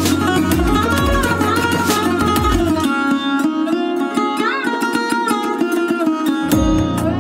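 Background music with a melody over a steady beat. The bass and beat drop out about three seconds in and come back near the end.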